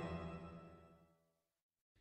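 Background music fading out within the first second, then silence.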